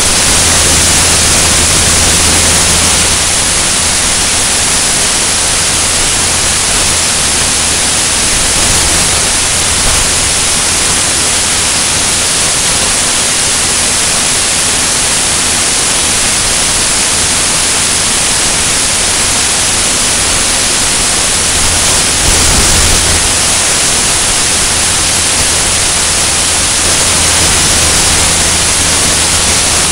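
Steady rush of airflow over an externally mounted microphone in cruise flight, with the low drone of a single-engine light aircraft's piston engine and propeller underneath.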